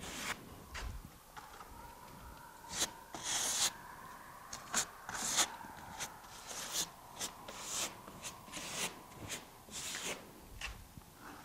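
Putty knife scraping and spreading cementitious base coat onto EPS foam board, filling the countersunk windlock fasteners flush with the foam: irregular short scrapes and dabs, several a second.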